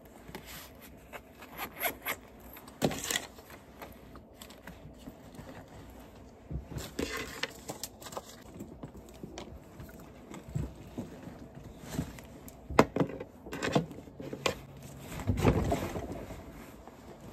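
Rustling and scraping of papers and handbags being handled and packed, with scattered clicks and knocks; the loudest bumps come about three seconds in and again near the end.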